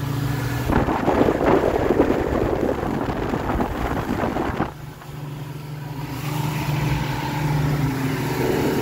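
Fishing boat's engine running steadily at speed with water and wind rushing past. From about a second in to nearly five seconds, a loud rough rushing noise covers the engine, then the engine hum comes back clear.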